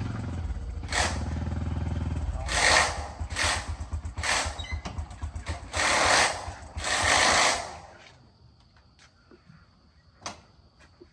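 A small engine running with a low, even throb, overlaid by about six short bursts of hissing noise. Both stop about eight seconds in, leaving only a few faint clicks and one sharper tick.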